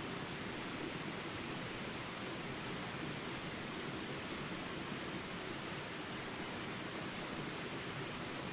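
Steady chorus of insects, a constant high-pitched shrill over an even background hiss of outdoor ambience.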